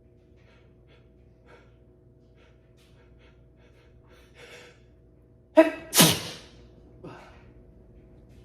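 A person sneezing once: an in-breath, then a voiced 'ah' and a loud sneeze right behind it, followed about a second later by a short breath out.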